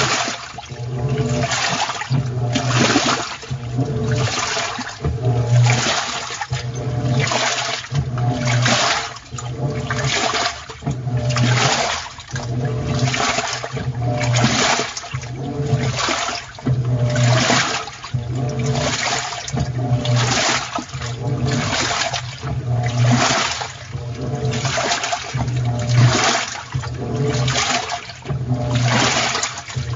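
Clothes washing machine running with water sloshing in rhythmic swishes about once a second. A low motor hum pulses in step with each swish.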